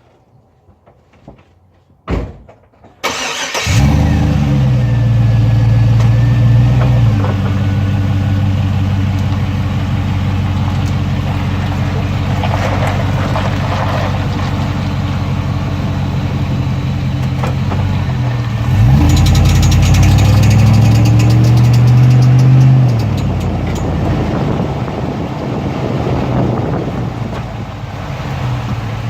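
2003 Chevrolet Tahoe V8 starting after a click, revving briefly, then settling to idle, and revved again for about four seconds in the second half. The revving is meant to bring out a chirping noise that the truck makes on acceleration.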